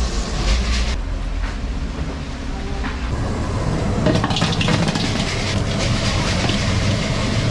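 Chicken pieces deep-frying in a wide pan of hot oil, sizzling over a steady low rumble. A metal ladle and then a wire skimmer knock and scrape against the pan a few times as the chicken is stirred and lifted out.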